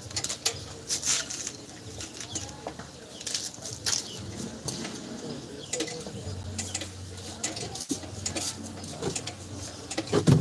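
Metal clicks and scrapes of a Toyota HiAce rear brake drum being handled and worked onto the hub over new brake shoes, with bird calls in the background.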